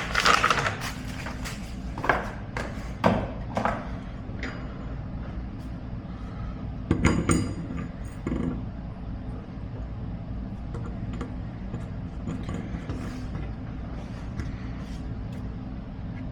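Scattered knocks and clinks of metal parts being handled during the pitcher rinser repair, loudest in a short cluster about seven seconds in, over a steady low machine hum.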